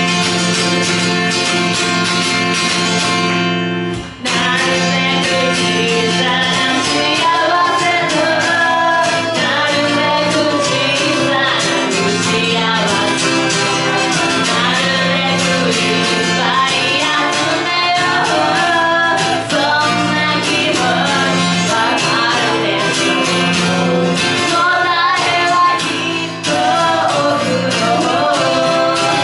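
A woman singing with her own strummed acoustic guitar. The guitar plays alone for the first few seconds, and after a brief break about four seconds in the voice comes in over the strumming.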